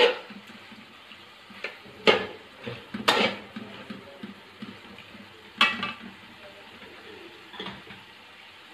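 A metal fork scraping and clinking against a steel cooking pan while stirring fried beef in masala, in about six irregular strokes; the sharpest come about two and three seconds in and near six seconds. A faint sizzle from the frying meat runs underneath.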